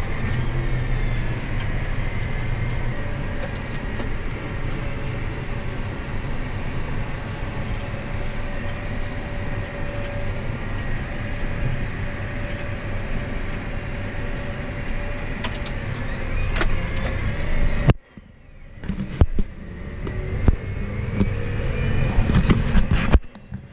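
A vehicle engine running steadily under a faint high whine. The sound breaks off sharply about eighteen seconds in and comes back with some knocks.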